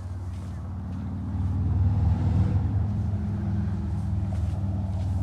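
An engine running steadily with a low hum, growing louder about a second in and then holding.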